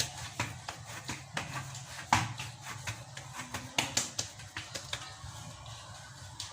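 Kitchen utensils handled while cooking: a run of irregular light taps and knocks, the sharpest about two seconds in and again around four seconds, over a steady low hum.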